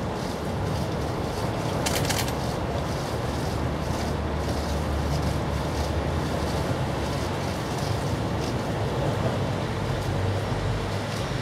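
Steady low rumble and hiss of outdoor background noise, with a short high-pitched hiss about two seconds in.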